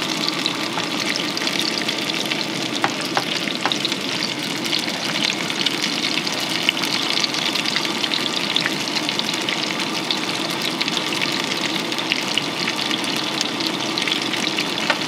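Chicken pieces sizzling in oil in a non-stick camping pan on a gas camp stove, a steady crackling fry.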